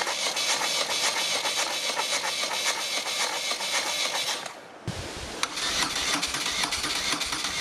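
BMW R1200GS flat-twin engine being cranked on its electric starter after it took in water while fording a river: a rattling, hissing whir. It breaks off about four and a half seconds in and resumes with a deeper rumble.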